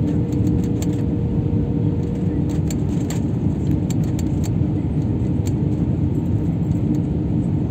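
Jet airliner cabin noise on approach: a steady loud rumble of the engines and rushing air heard inside the cabin, with a constant hum and scattered light clicks and rattles.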